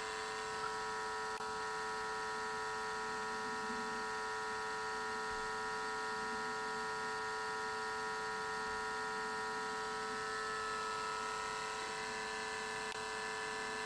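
Steady audio test tone, rich in overtones, from the diode detector of a 455 kHz ceramic-filter IF amplifier: the test oscillator's multivibrator modulation coming through the amplifier, the sign that it passes the signal.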